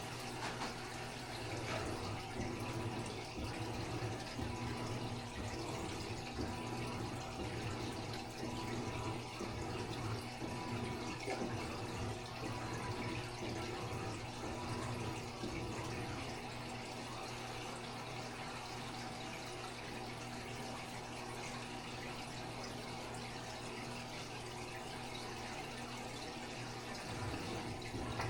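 Aquarium water running steadily through a filter, a constant trickling splash with a low steady hum under it.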